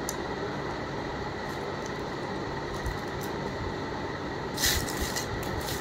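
Black plastic microphone-holder clips being handled: a few faint clicks, and a brief rustle about three-quarters of the way through, over a steady background hum.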